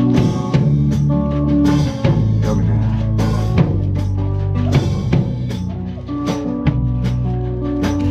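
Live band playing an instrumental passage without vocals: an upright bass holds low notes under a steady drum kit beat of kick, snare and rimshot hits, with acoustic guitar.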